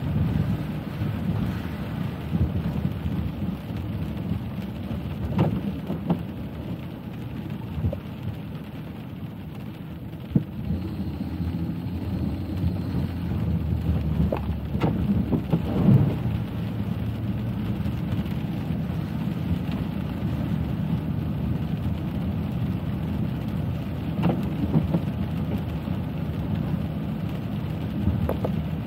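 A car driving in the rain: a steady low rumble of tyres and engine on a wet road, with rain on the car and a few scattered knocks.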